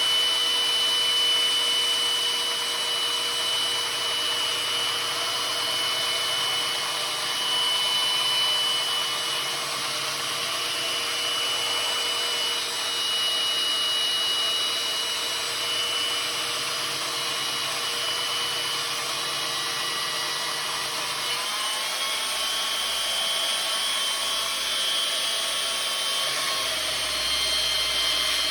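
Electric power tool sanding the steel head of a maul to grind out a deep nick. It makes a steady abrasive hiss over a constant motor whine, and the whine shifts up in pitch about three quarters of the way through.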